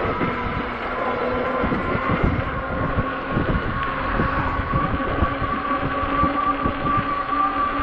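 Ecotric e-bike's hub motor whining steadily while riding, with wind buffeting and road rumble on the microphone.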